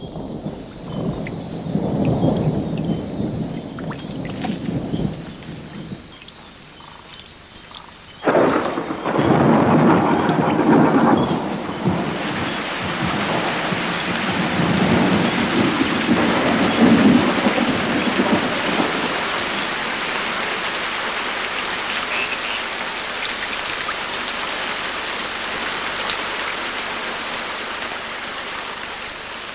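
Thunder rumbling, with a sudden loud peal about eight seconds in, giving way to a steady downpour of tropical rain falling on forest foliage.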